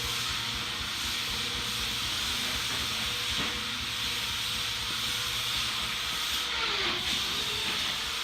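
Shop machinery running steadily: an even hiss with a faint constant hum underneath.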